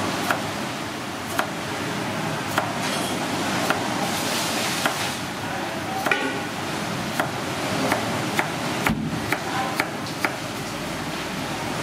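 A cleaver slicing through a carrot and knocking on a wooden chopping block, one sharp chop about every second, coming quicker in the last few seconds.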